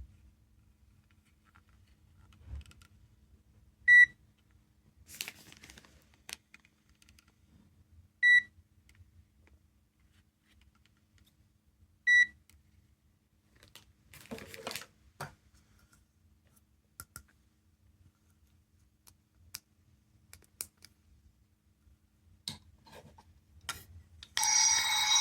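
Small electronic sound-making capsule toy giving three short, clear beeps about four seconds apart, with faint clicks and rustling of handling between them. Near the end, a louder electronic sound with several tones starts up.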